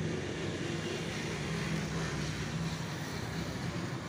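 A steady engine hum that holds one pitch throughout.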